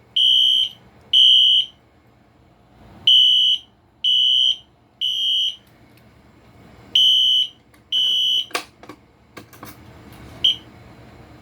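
Wheelock horn strobe sounding a high electronic beep in the temporal-3 fire evacuation pattern: half-second beeps in groups of three, with a longer pause between groups. About two-thirds of the way through it cuts off midway through a group with a few sharp clicks, and a single short beep follows a couple of seconds later.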